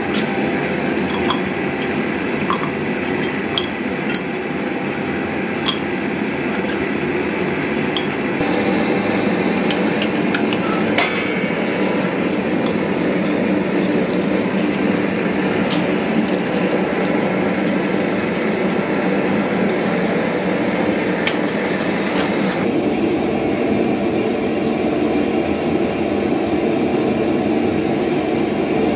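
Gas-fired melting furnace burner running with a steady rushing noise, with light metallic clinks of tools and crucible in roughly the first ten seconds.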